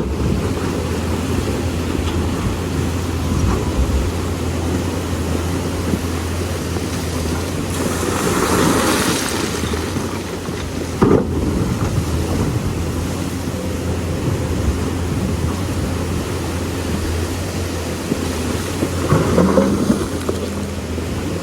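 Lonking excavator's diesel engine running with a steady low hum under a constant rush of river water and wind noise. A louder hissing swell comes about eight seconds in, a sharp knock about halfway through, and a rougher, noisier patch near the end.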